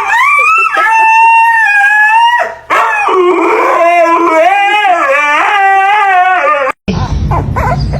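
A dog howling: one long, high howl, then a lower howl whose pitch wavers up and down. Near the end it cuts off suddenly, replaced by a rough, noisy rush.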